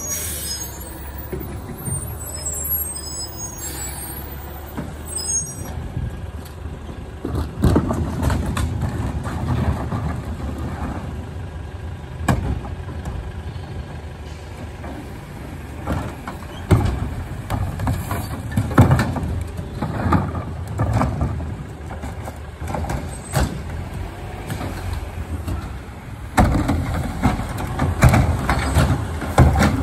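CNG-powered McNeilus rear-loader garbage truck at work: its engine drones steadily for the first few seconds, then irregular bangs, knocks and air hisses follow as trash is loaded and packed.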